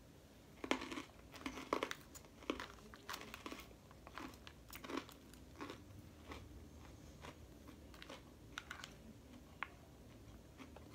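Chewing of a crisp lettuce salad, irregular crunches, with a plastic fork now and then clicking and scraping in a plastic salad bowl.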